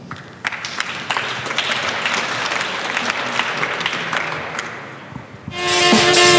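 Audience applauding, dying away after about five seconds. Loud music then starts abruptly near the end.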